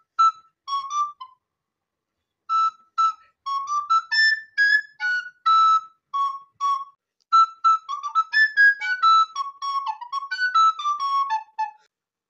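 White plastic recorder played solo: a short phrase of separate tongued notes, a pause of about a second, then a longer run of quick notes rising and falling in pitch, stopping shortly before the end.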